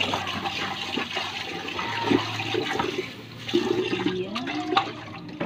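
Tap water running and splashing into and over a blackened metal cooking pot as it is rinsed. The flow eases off about three and a half seconds in as the tap is turned down.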